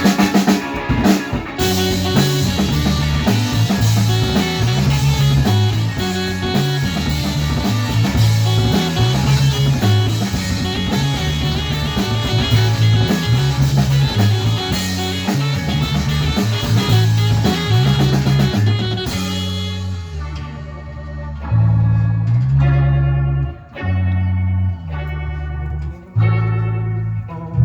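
Rock band playing electric guitar, bass and drum kit. About 19 seconds in the drums drop out, and the guitars and bass carry on with held, separated chords.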